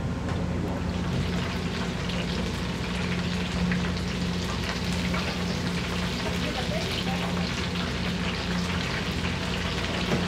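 King shrimp deep-frying in hot oil: a dense, steady crackle and sizzle, over a steady low hum.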